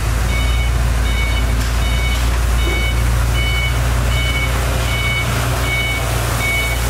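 Heavy road-construction machine running with its reversing alarm beeping steadily, about one beep every three-quarters of a second, over the low rumble of its engine.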